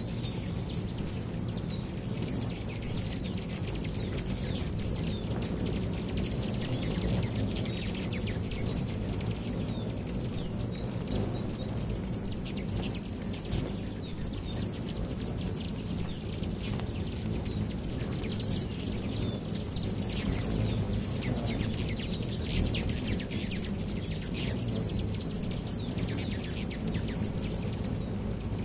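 Swarm of Rufous and Broad-tailed hummingbirds at a feeder: a low hum of many hovering wings, with frequent short, sharp chip and squeak calls. A steady high-pitched buzz runs underneath.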